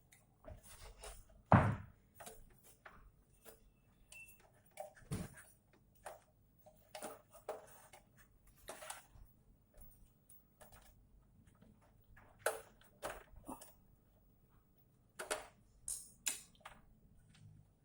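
Scattered small clicks, taps and knocks of parts and tools being handled while an amplifier is being taken apart, with one louder knock about one and a half seconds in.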